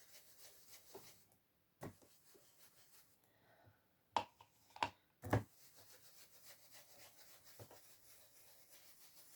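Light clicks and taps from craft supplies being handled on a work surface, about five in all. The loudest three come between about four and five and a half seconds in, with faint rubbing between them.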